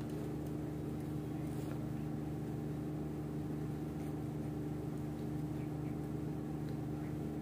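A steady, even hum from a running electric motor or appliance, holding one low pitch throughout.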